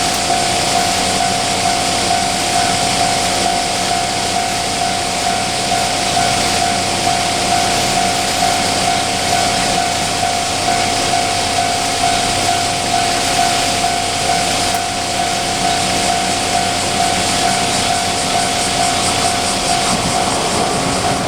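Japanese level crossing warning bell sounding its repeating "kan-kan" alarm, one steady pitch pulsing regularly, over a steady rushing hiss.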